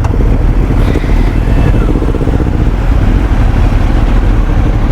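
Motorcycle engines running steadily, loud and low-pitched.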